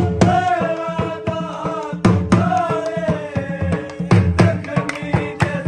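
Background music: a sustained melody line over a steady drum beat.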